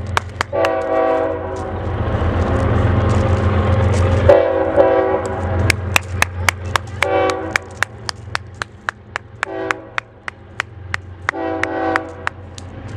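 An approaching BNSF freight locomotive's multi-chime air horn sounds five chord blasts: a long first one, then shorter ones a few seconds apart. Under them runs the steady low rumble of the train, and in the second half a quick, even run of sharp clicks.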